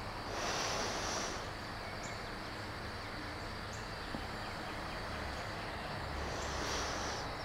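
Two slow, soft exhaled breaths, about six seconds apart, from a person stretching, over a faint steady background hum.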